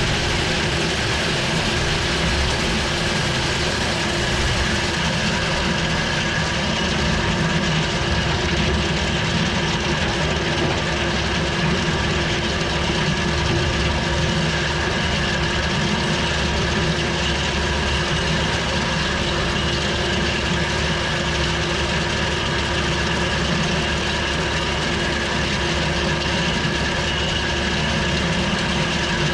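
Tractor engine running steadily while a tractor-drawn rock picker's chain conveyor works through lumpy soil and stones, a continuous mechanical din with a few steady tones in it.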